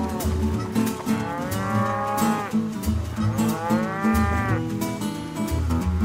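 Range cattle mooing: two long moos, each rising and then falling in pitch, over background music with a steady beat.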